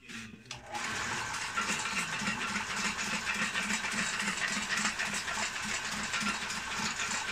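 Homemade broom-stitching machine running: its electric motor and chain drive work the needle head that stitches through the broom straw, giving a steady mechanical whir with a regular clatter about three to four times a second. It starts under a second in.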